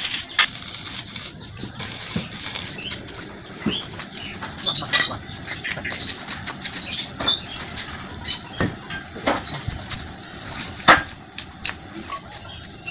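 Scattered light knocks and clicks from steel chassis channel and loose metal parts being handled and set down on brick paving, with one sharper knock about eleven seconds in.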